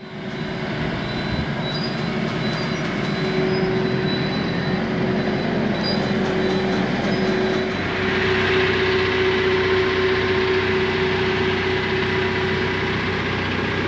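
Telehandler's diesel engine running steadily under load with a steady hum, getting louder about eight seconds in, as it drags a tractor on chains out of a shipping container.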